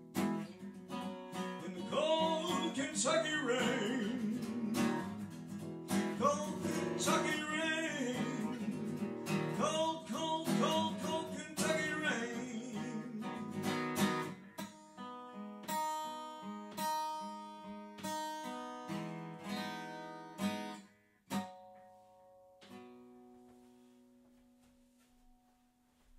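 A man singing to a strummed acoustic guitar. About fourteen seconds in the voice stops and the guitar carries on alone with strummed chords, then a last few notes ring out and fade away near the end.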